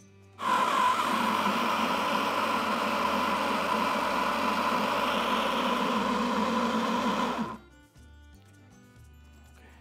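Electric mini chopper (food processor) motor running loud and steady for about seven seconds, blending the fish-burger mixture of white fish, vegetables and egg. It starts about half a second in and cuts off suddenly.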